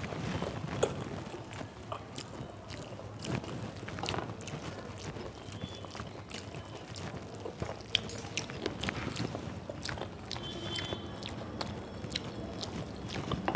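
Fingers mashing and mixing rice with bhorta on a metal plate, with mouth chewing sounds and scattered sharp little clicks of the fingers and rings against the plate.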